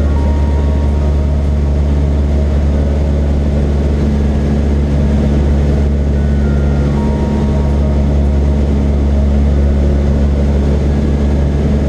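Cessna 172's piston engine and propeller droning steadily, heard inside the cabin in flight.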